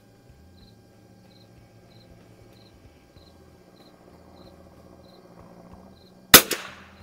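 An insect chirping faintly and steadily, about one short chirp every half second. About six seconds in comes a single sharp crack from a Winchester 52D .22 LR target rifle firing one shot, the loudest sound here.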